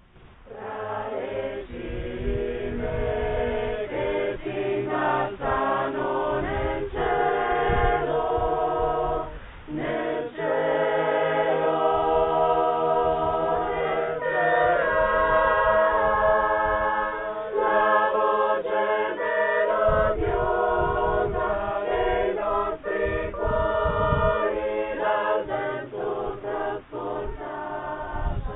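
A choir singing the opening hymn of a Mass, several voices holding long notes together.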